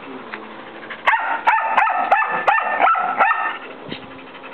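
A dog barking in a quick run of about seven short, high-pitched barks, starting about a second in and stopping a little past the middle.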